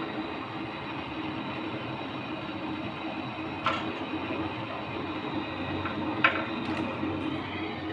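Steady running machine noise with a low hum, broken by two sharp clicks or taps a few seconds apart.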